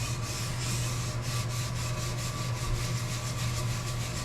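Brass wire brush scrubbing a wet cast iron slide coated with automatic transmission fluid and acetone, in quick back-and-forth strokes several times a second, working off rust and stains.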